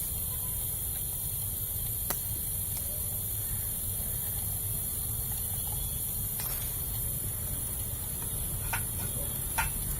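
A steady low machine hum with a high hiss over it, and a few faint clicks.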